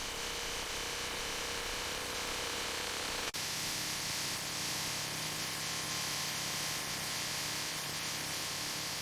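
Steady hissing noise with a sudden break about a third of the way in, after which it carries on with a slightly different texture.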